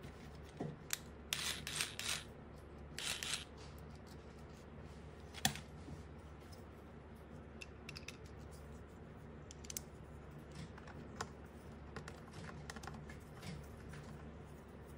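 Small puzzle-toy pieces being handled, with scattered clicks and taps. Two short scraping, rustling stretches come in the first few seconds, and one sharp click comes about five and a half seconds in.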